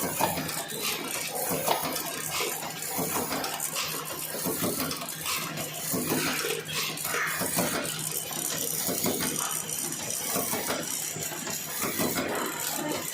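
Automatic cartoning machine running, a busy, steady clatter of many small clicks and rattles.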